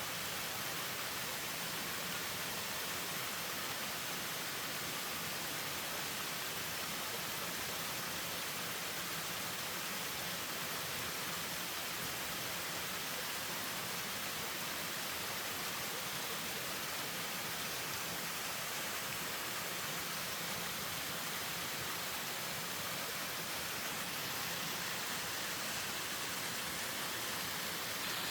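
Waterfall running steadily: a continuous, even rush of falling water.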